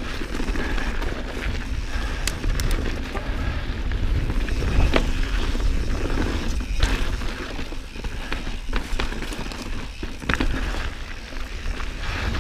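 2019 Santa Cruz Bronson mountain bike riding down a sandy dirt trail. Wind rumbles steadily on the microphone over the tyres on dirt, with scattered sharp clicks and rattles from the bike over bumps.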